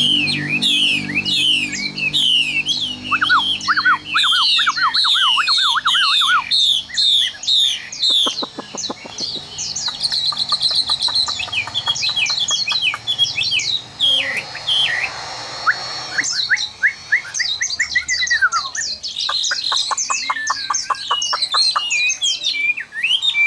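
Chinese hwamei, a wild-caught bird only partly tamed, singing loudly in its cage. It sings a long, varied song of quick repeated whistled phrases, many notes falling in pitch, with a run of lower rising notes a few seconds in and fast rattling trills later on.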